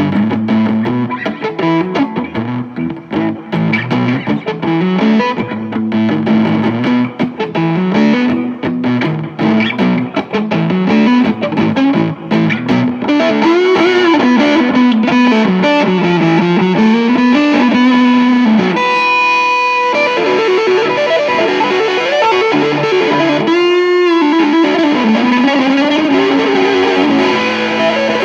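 Electric guitar played through a guitar amplifier with distortion and effects: a single-note lead line, quick picked notes at first, then held notes with string bends and vibrato from about halfway through, with two brief noisy scrapes near the end.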